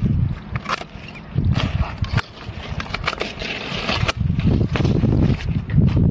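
Hand pruning shears snipping small custard apple branches: a run of sharp irregular clicks, with leaves rustling, over a low rumble.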